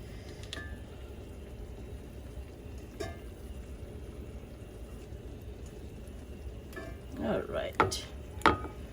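Fish sizzling in a frying pan on the stove, a steady hiss, with a few light scrapes and taps of a utensil lifting the browned bits off the bottom of the pan.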